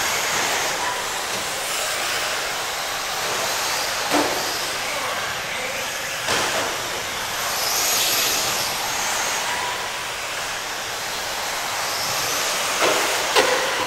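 Radio-controlled race cars running on a dirt oval: a steady hiss of motors and tires that swells as cars pass, around four and eight seconds in. A few sharp clicks or knocks stand out, the loudest near the end.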